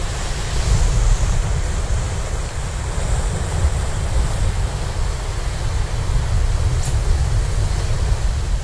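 Sea waves washing and breaking over rocks, a steady surf, with wind buffeting the microphone as a heavy low rumble.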